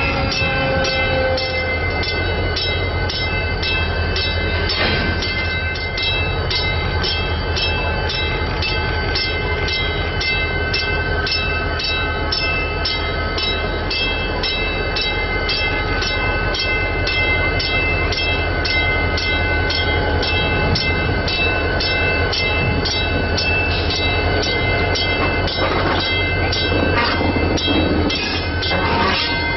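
Chicago & North Western diesel locomotive 6847 rumbling as it pulls slowly forward, its bell ringing steadily at about two strikes a second.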